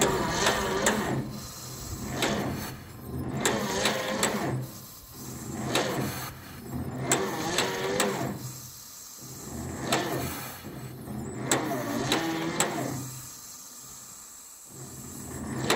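John Deere A two-cylinder engine being cranked by its electric starter, turning over slowly in a labouring rhythm of about one heavy stroke a second, with the compression petcocks open, without firing. It is a cold engine on a run-down battery that does not catch.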